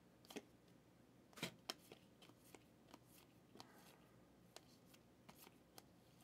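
Faint clicks and flicks of 2017 Donruss football trading cards being flipped through by hand, card edges snapping off the stack one after another, the loudest about a second and a half in.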